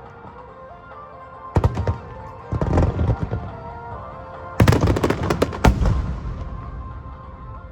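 Fireworks bursting over music with long held notes. There are a couple of sharp bangs about a second and a half in, crackling around three seconds, then a dense run of bangs and crackles from about four and a half to six seconds that dies away.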